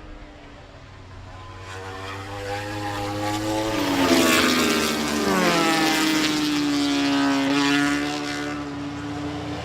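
MotoGP racing motorcycle engine at high revs passing at speed. The note grows louder, drops in pitch as the bike goes by about four to five seconds in, then holds steady before easing off.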